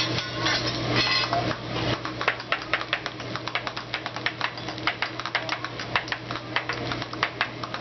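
Metal spatula striking and scraping a hibachi griddle as fried rice is chopped: a fast run of sharp metallic clicks, several a second, starting about two seconds in.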